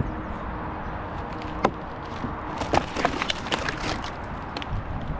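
Dry, dead oak wood cracking and snapping: one sharp crack, then a quick run of snaps about two and a half to four and a half seconds in. Under it runs a steady low engine hum.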